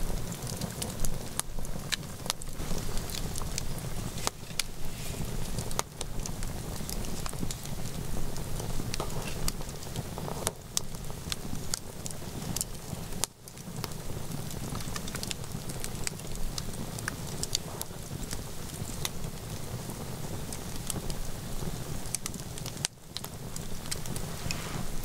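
Wood campfire of a burning hollow log crackling, with frequent sharp, irregular pops over a low steady rumble.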